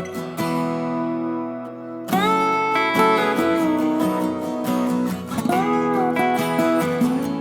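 Background music: an acoustic guitar tune. A chord rings and fades, then a new strum comes in about two seconds in, with notes that slide in pitch.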